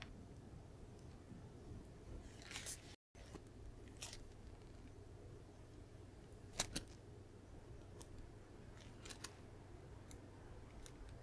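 Faint handling sounds while meringue is piped from a piping bag onto a baking tray: scattered small clicks and ticks over a low steady hum. The sharpest pair comes about six and a half seconds in, and the sound cuts out briefly about three seconds in.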